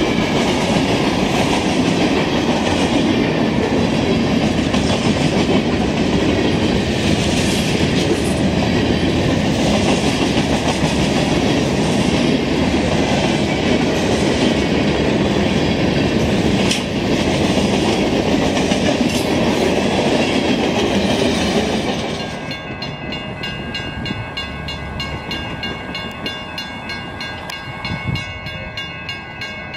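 Freight cars rolling past at close range: steady wheel and rail noise. About 22 seconds in, it changes to an approaching diesel locomotive sounding its air horn, a steady chord of several tones.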